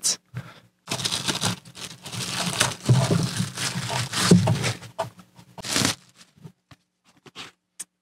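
Thin plastic bags crinkling and tearing as small speakers are pulled out of them, followed by a few light clicks and knocks as they are handled and set down.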